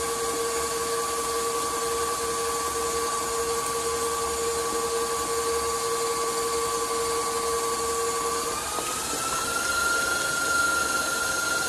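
Electric stand mixer whipping eggs while sugar is added gradually: a steady motor whine over the whisk's whir. About eight and a half seconds in, the whine rises in pitch and holds at the higher note.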